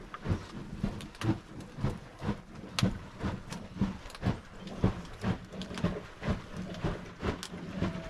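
Fairly even run of short knocks, about two or three a second, over a faint steady low hum.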